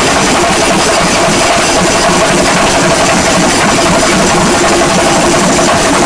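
Shinkarimelam: many chenda drums beaten together with sticks in a dense, rapid, continuous rhythm, very loud.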